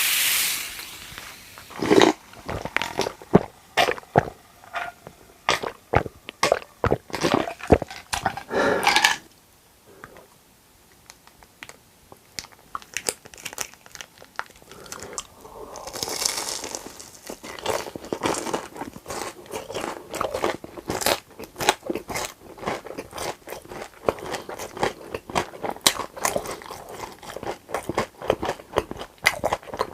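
Close-miked eating: crunchy food bitten and chewed with many sharp crunches. The crunching pauses for a few seconds about ten seconds in, then resumes densely.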